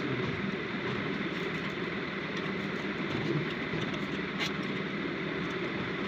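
Window air conditioner running, its blower giving a steady, even whir, with one small tick about four and a half seconds in; the blower is taken to be defective and the source of the noise.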